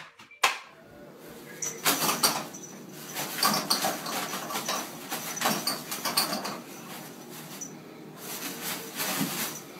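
Toilet paper rustling as a kitten paws and pulls it off a wall-mounted roll, in repeated scratchy bursts.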